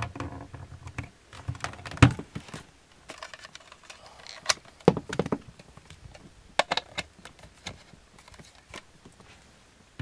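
Power cords and plugs handled at a wall outlet: a plug pulled out and another pushed into a plug-in power meter, giving a few scattered sharp clicks and knocks with some cord rattle between them.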